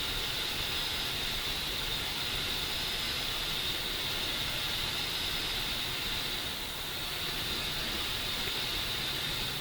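Steady hiss, strongest in a narrow high band, dipping slightly about seven seconds in; no other distinct sounds.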